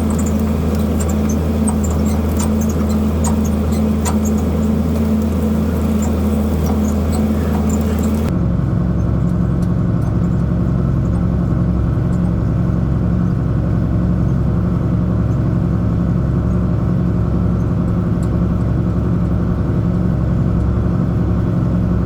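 Tractor engine running steadily under load while pulling an offset disk, with light rattling and clicking in the first several seconds. About eight seconds in, the sound switches abruptly to a different, steadier engine drone.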